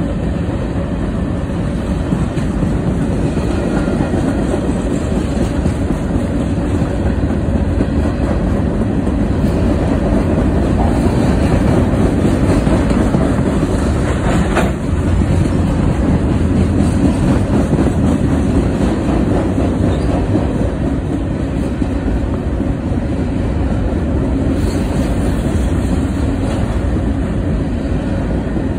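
Freight train cars rolling past below: a steady rumble of steel wheels on rail with the clickety-clack of the wheels, and a single sharp knock about halfway through.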